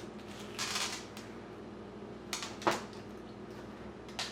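Light handling noises of small plastic slime bits and containers on a table: a few short clicks and soft scrapes over a steady low hum.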